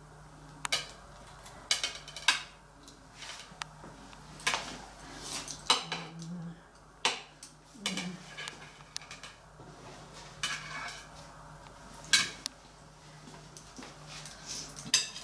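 Metal palette knife clinking and scraping against a metal tray as whipped cream is spread and smoothed over a cake log: irregular taps and short scrapes, a few sharper clinks among them.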